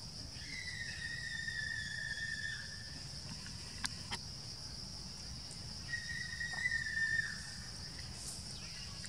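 Steady high insect drone. Two long, level whistle-like tones stand out, one near the start lasting about two seconds and another about six seconds in. Two sharp clicks come about four seconds in.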